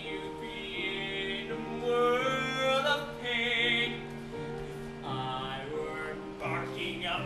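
Musical-theatre song: a man singing held, wavering notes over an instrumental accompaniment.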